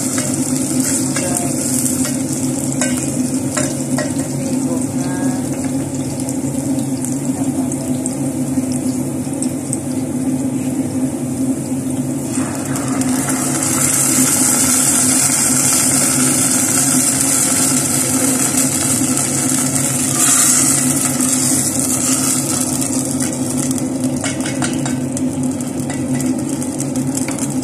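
Sliced onions sizzling in hot oil in a stainless steel pot, stirred with a wooden spatula. About 13 seconds in, canned sardines in tomato sauce are poured in and the sizzling grows louder and stays loud, over a steady low hum.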